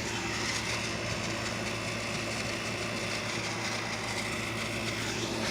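Steady background hum and hiss with no distinct events, like a distant engine or machine running.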